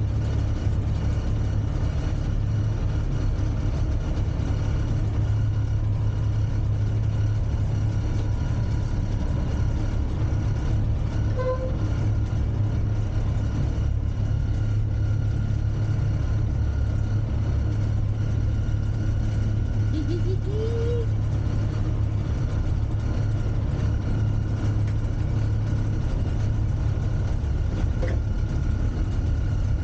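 Class 31 diesel-electric locomotive's English Electric V12 engine running steadily under way, heard inside the cab as an even, deep drone. A brief rising squeal comes about two-thirds of the way in.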